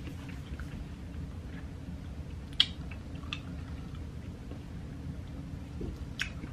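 Steady low room hum with a few short, sharp clicks and crackles. The loudest comes about two and a half seconds in, and another comes near the end.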